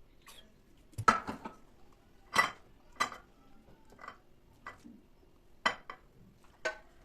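Dishes and cutlery clinking and clattering as they are handled in a kitchen, in a string of separate knocks with short pauses between, the loudest cluster about a second in.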